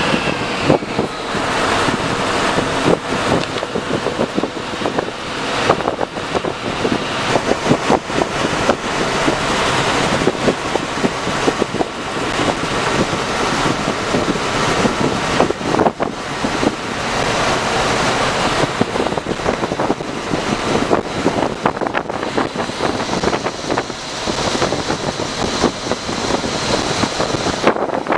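Sleeper coach on the move, heard from the driver's cabin: a steady mix of road, engine and wind noise on the microphone, broken all the way through by short knocks and rattles.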